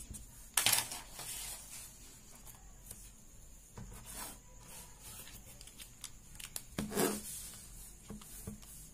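Desk handling noise: short rustles and rubs of hands and paper, the loudest about half a second in and another about seven seconds in, then a couple of light taps near the end as a pocket calculator is handled.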